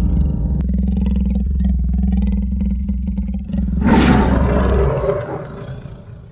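Big-cat roar: a low rumbling growl that swells into a loud roar about four seconds in, then fades away.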